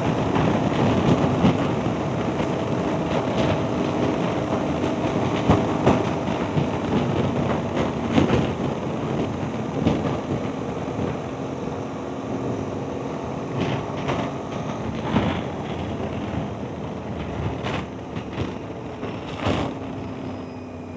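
Aprilia Tuareg 660 parallel-twin motorcycle with an Akrapovic full exhaust running on the move, mixed with wind rush and road rumble and a few scattered knocks. It grows gradually quieter toward the end.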